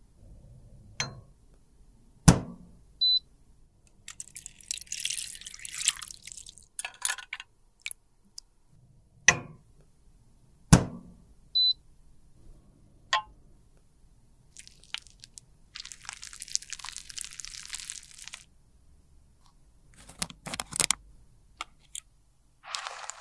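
Small metal lipstick cases and glass jars clicked and knocked down onto a metal wire rack, with two stretches of hissy rustling and two very short high beeps about eight seconds apart.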